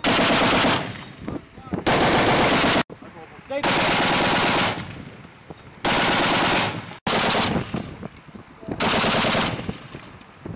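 Browning M2 .50 caliber heavy machine gun firing six short bursts, each under a second long, with the sound trailing off in echo between bursts.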